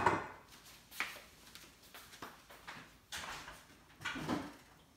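Kitchen handling noises: a sharp knock at the start, then several softer knocks and clunks about a second apart as ingredient containers are moved and set down.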